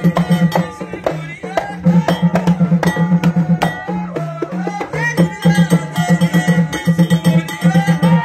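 Folk music: a rapid, steady drumbeat with a melody bending up and down over it.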